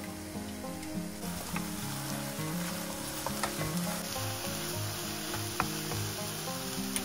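Diced eggplant sizzling as it fries in a non-stick frying pan, stirred with a wooden spatula that gives a few light knocks against the pan.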